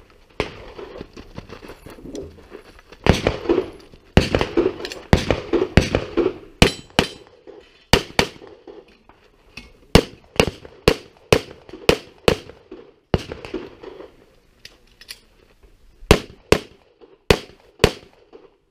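Strings of pistol shots: a fast, dense volley about three seconds in, then shots spaced a little under half a second apart, and quick pairs near the end.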